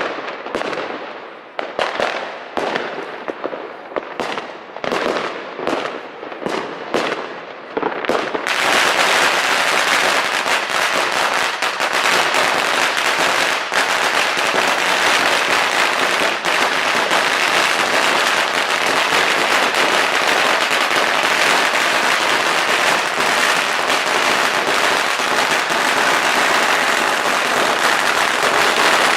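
A 100,000-shot firecracker string going off. Separate sharp bangs come about one or two a second at first, then at about eight seconds in the string runs as an unbroken rapid crackle of bangs.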